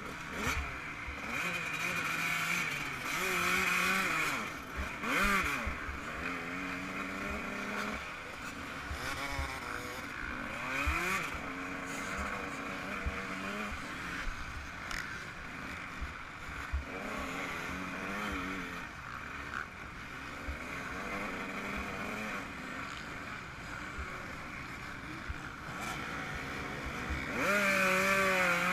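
Yamaha YZ125's two-stroke single-cylinder engine revving at race pace, its pitch climbing and dropping again and again with the throttle and gear changes. Wind noise and frequent knocks run underneath, and the engine is loudest near the end.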